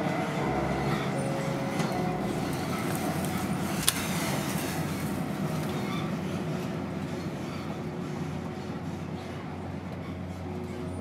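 Passenger train running on rails: steady carriage and track noise, with one sharp click about four seconds in, slowly fading toward the end.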